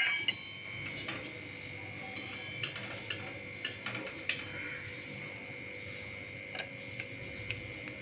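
Scattered light clicks and taps of a stainless-steel plate being handled and set down, about ten in all, over a steady high-pitched hum.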